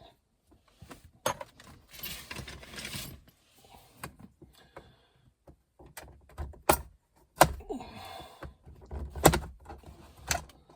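Hand work on plastic interior trim: scattered sharp clicks and clatter with some rustling, as the overhead console and light lens are worked loose. The clicks come more often in the second half.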